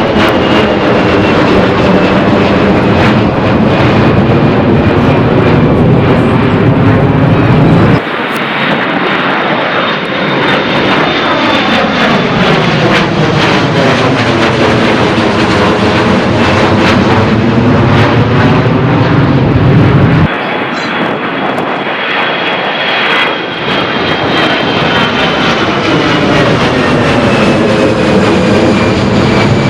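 Jet airliners at take-off power passing low overhead, a loud steady engine noise with a high whine that slowly falls in pitch as each one goes by. The sound cuts off abruptly twice, about 8 and 20 seconds in, and a fresh departure of the same kind follows each time.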